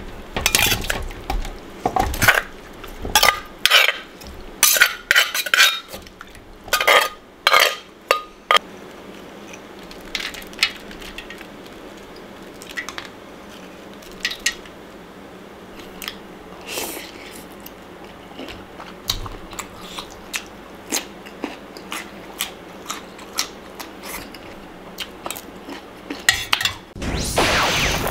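A metal spoon knocking and scraping against a wooden mortar and a stainless steel tray as the salad is served out, with clinks of dishes; the knocks come thick and fast in the first nine seconds, then sparser. Near the end a loud whoosh sweeps in.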